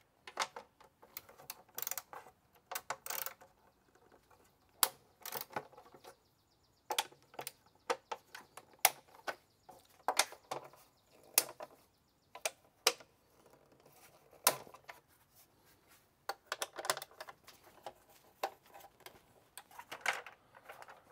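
Hand ratchet clicking in quick runs as the 10 mm engine cover bolts are loosened, with scattered clinks of the tool and metal bolts.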